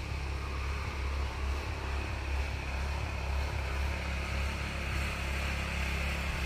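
Go-kart's 212cc single-cylinder engine running with a steady drone as the kart drives off down a slope.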